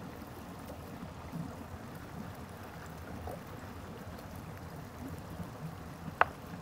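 Stream running over rocks, a steady low rush of water. Near the end, a single sharp knock as a chef's knife chops through beef onto a bamboo cutting board.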